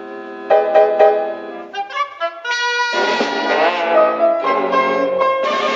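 Orchestral cartoon score led by brass: a held chord, then a run of short detached notes, then a fuller brass passage from about halfway through.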